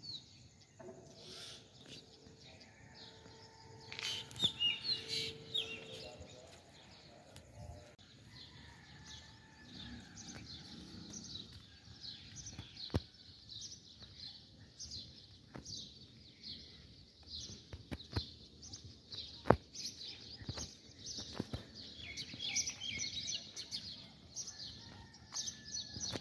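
Birds chirping, many short high calls overlapping, with a few sharp clicks, the loudest about three-quarters of the way in.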